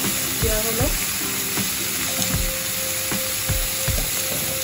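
Brinjal, pumpkin and pui shaak sizzling steadily as they fry in oil in a pan, with a spatula stirring and giving irregular low knocks against the pan.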